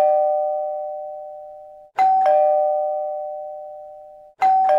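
Two-note ding-dong doorbell chime, a higher note then a lower one, each ringing out and fading over about two seconds. It strikes again about two seconds in and once more near the end.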